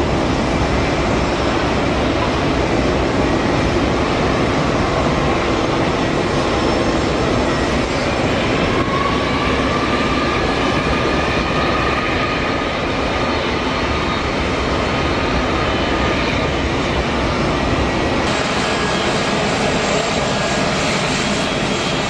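Turbofan engines of an American Eagle Embraer ERJ regional jet running at taxi power: a steady jet rumble and hiss, with a thin whine that rises about eight seconds in and holds for several seconds. About eighteen seconds in the sound changes to that of another jet airliner on the runway.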